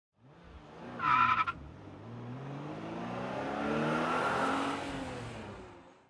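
A brief high squeal about a second in, then an engine whose pitch rises and falls as it swells and fades away, like a car driving past.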